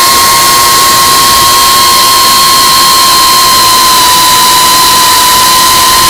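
Geprc Cinelog35 ducted FPV drone's motors and propellers whining at a steady pitch over a loud rushing hiss of wind.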